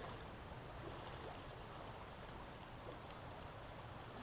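Quiet outdoor background noise: a steady low rumble, with a few faint, short, high chirping calls about two and a half seconds in.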